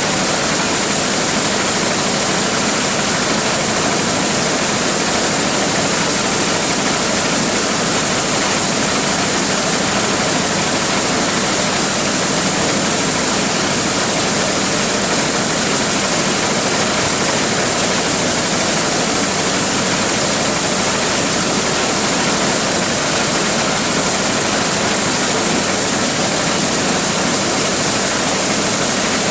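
Large corn sheller machine running steadily: a loud, even rushing noise with a high hiss and a low steady hum.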